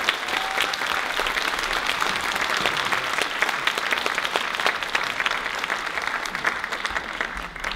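Audience applauding a stage performance: dense clapping that starts to die away near the end.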